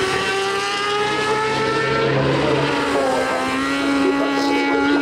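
Racing motorcycle engines at high revs: the note climbs slowly for about two seconds, drops near three seconds, then holds a lower, steady note.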